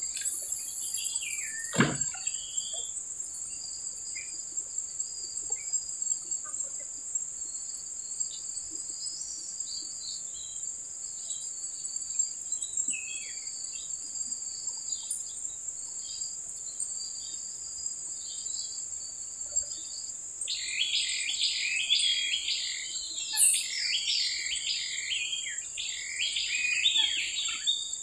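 Steady high-pitched drone of insects with scattered bird chirps; from about two-thirds of the way through a bird sings a rapid, dense run of chirps that becomes the loudest sound. A single knock about two seconds in.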